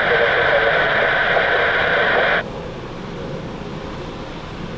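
Air traffic control radio transmission: a keyed mic giving a loud static hiss with only a faint, unreadable voice in it, which cuts off sharply about two and a half seconds in. A steady low rumble and hiss remain after it.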